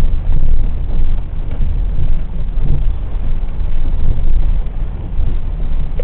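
Car driving on a wet road, heard from inside the cabin: a steady, heavy low rumble of engine and tyres, with wind buffeting the microphone.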